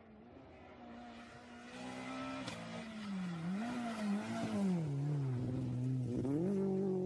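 Rally car engine coming up loud at speed, its revs rising and falling, dropping low about five seconds in as it slows, then climbing again as it accelerates away.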